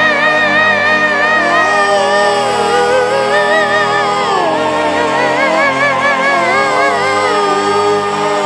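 Slow worship music: sustained chords under a long, slow melody held with a wide vibrato, stepping down in pitch about halfway through and climbing again near the end.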